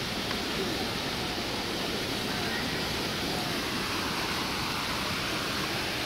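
Steady rushing of a small waterfall cascading over rocks.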